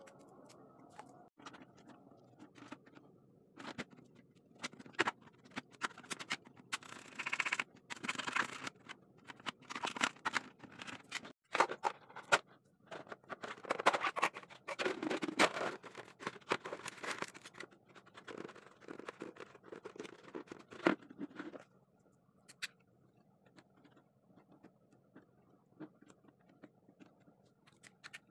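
Thin clear plastic from a used water gallon crinkling, crackling and clicking as it is handled and worked by hand, in irregular spells that stop about three-quarters of the way through, leaving faint room noise.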